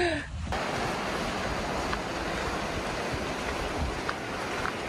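Steady rushing of the Virgin River, an even wash of water noise that cuts in sharply about half a second in, after a brief voice.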